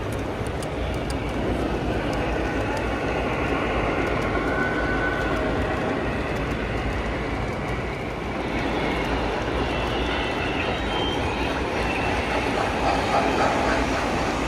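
O-gauge model trains running on a three-rail modular layout: a steady rolling rumble of wheels on track.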